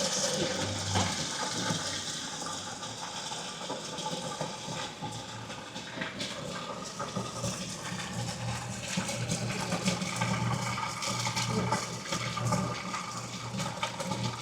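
Water running and splashing with a steady low machine hum beneath it and scattered small clicks and knocks.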